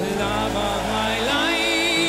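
Background music with sustained chords and a wavering high melody line.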